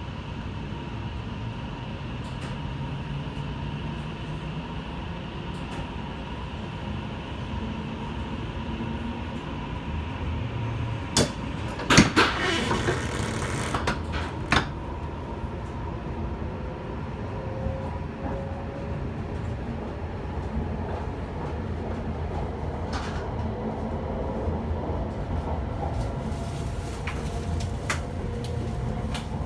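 E5 series Shinkansen heard from inside a passenger car as it pulls out of the station and gathers speed: a steady low rumble, with faint rising motor whine in the later part. A few sharp knocks and a brief loud clatter come about twelve seconds in.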